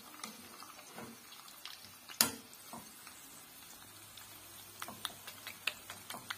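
Chicken pieces frying in oil in a pan, with small irregular crackles and spits that grow busier near the end. One sharp knock about two seconds in.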